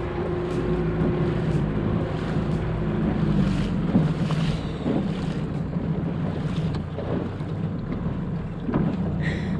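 Boat under way: a steady low engine hum with wind buffeting the microphone and the wash of water.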